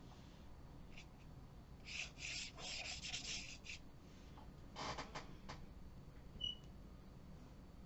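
A watercolour brush sweeping across Art Advantage Brushstroke Paper: faint scratching of bristles on paper, a quick run of strokes about two to four seconds in and a few more around five seconds. A brief high squeak near the end.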